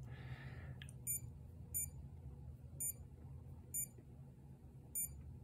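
Suunto Core watch giving its button-press beep five times, short high electronic beeps about a second apart as its buttons are pressed to step through the modes. A brief rustle comes just before the first beep.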